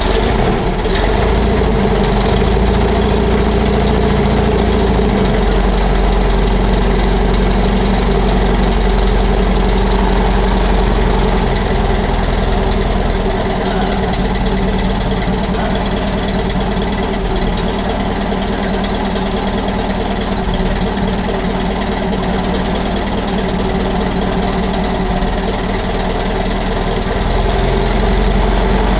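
Austin LD van's engine running steadily at idle.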